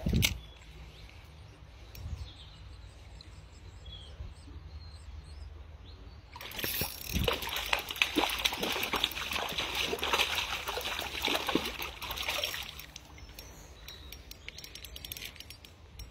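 Water splashing and sloshing at the surface of a shallow stream for about six seconds, starting a little past the middle, over a low steady background. A single thump at the very start.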